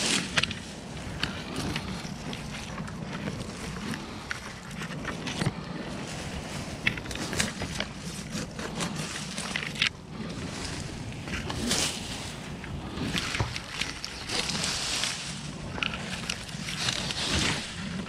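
Leaves and small branches rustling and snapping close by as a tree climber moves through dense foliage. Irregular clicks and crackles and a few short rustling rushes sit over a steady low rumble.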